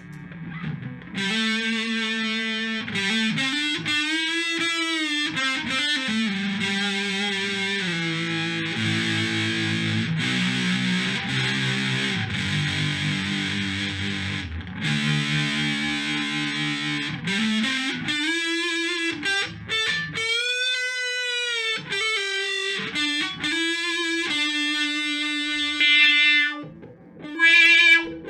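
Electric guitar played through a Moen Jimi Nova univibe-style pedal with some distortion: single notes and chords whose pitch bends and wavers, with a brief pause near the end.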